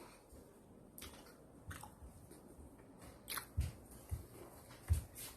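Quiet chewing and mouth sounds, with a few scattered soft clicks and low thumps.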